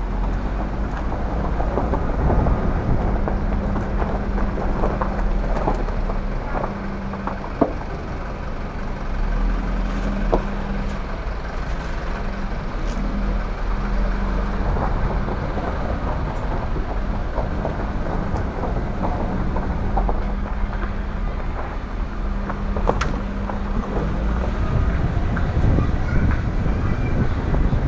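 Car driving slowly along a rough dirt and gravel lane: a steady low engine hum, with tyres crunching over the stones and scattered small knocks and rattles from the bumps.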